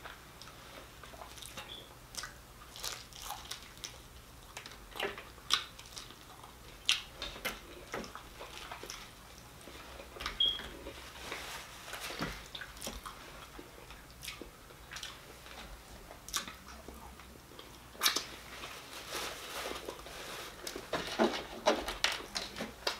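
Close-up biting and chewing of crunchy fried red snapper: irregular crunches and wet mouth clicks and smacks, growing denser near the end.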